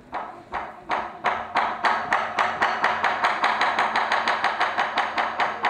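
Taiko drum struck with wooden sticks in an even run of single strokes. The strokes quicken from about three a second to about five a second and then hold that pace.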